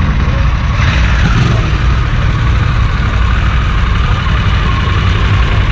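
Motorcycle engines idling steadily in a demo-ride lot, with a higher sound falling in pitch about a second in.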